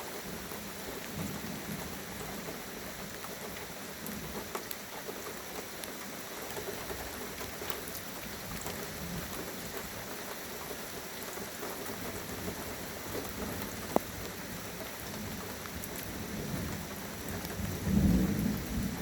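Steady rain falling during a thunderstorm, with a low rumble of thunder swelling near the end. There is one sharp click about three quarters of the way through.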